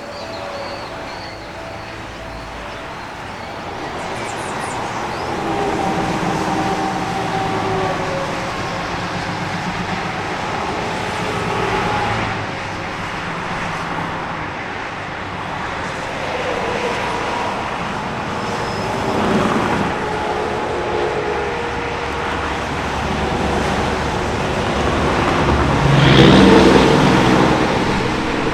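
Interstate highway traffic: a continuous wash of tyre and engine noise that swells as vehicles pass. It is loudest about 26 seconds in, where a heavier vehicle goes by with a deep engine hum.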